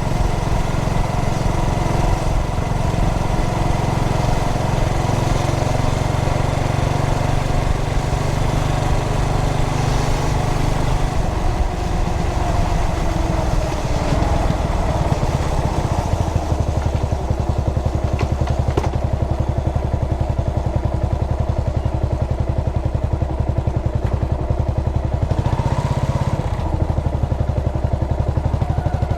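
Yamaha SR400's air-cooled single-cylinder engine running under way while riding. The engine note drops about halfway through, leaving slower, distinct firing beats, and shifts again near the end.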